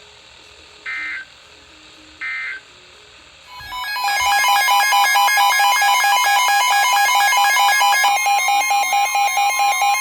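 Emergency Alert System signals on a weather radio broadcast: two short buzzing data bursts, the end-of-message code closing the previous warning. About three and a half seconds in, a loud electronic alert tone starts, several steady pitches with a stepped, warbling pattern, pulsing a few times a second near the end, as the next warning is signalled.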